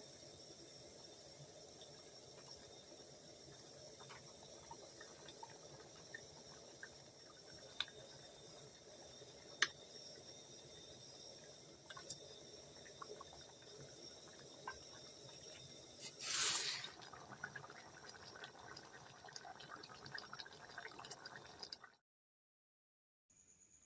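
Liquid cooking sounds from a pot of stew: a steady simmer with scattered small clicks and drips. About two-thirds through comes a brief louder splash, followed by a few seconds of light crackling before the sound cuts out.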